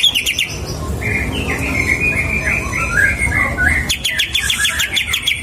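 Green leafbird (cucak hijau) singing. A fast run of repeated high notes gives way to a varied warbling phrase, and the fast repeated notes return about four seconds in.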